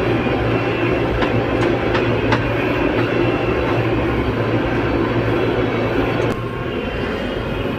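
Heavy diesel construction machinery running steadily with a low, continuous engine rumble and a few light clanks. It eases off slightly about six seconds in.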